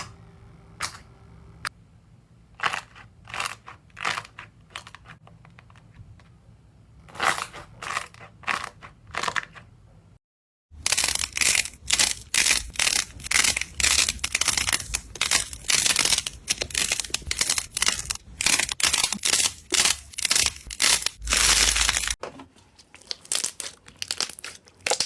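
Slime being squeezed and pressed, making sharp crackling and popping clicks. At first the clicks are scattered; after a brief cut to silence about ten seconds in, they come in a dense, rapid crackle for around ten seconds, then thin out again.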